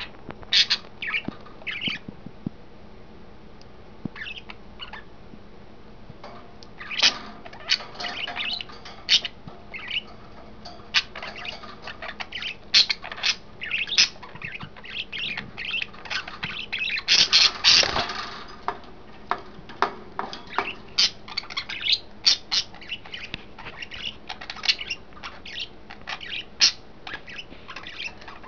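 Pet budgerigars chirping and squawking in a stream of short, sharp calls, with a dense flurry of calls about seventeen seconds in.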